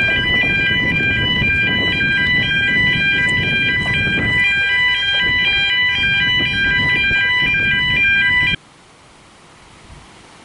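Road-crossing warning alarm sounding rapidly alternating electronic tones as the narrow-gauge train crosses the road, over a low rumbling noise from the passing train. Both cut off suddenly about eight and a half seconds in.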